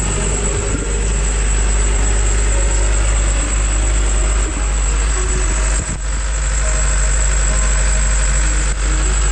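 Marine diesel generator running steadily in a yacht's enclosed engine room, a loud, even drone with a strong low hum.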